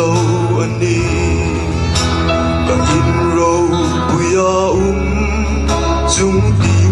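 Live band playing a song: electric and bass guitars, keyboard and drums under a sustained lead melody, the bass moving to a new note every couple of seconds.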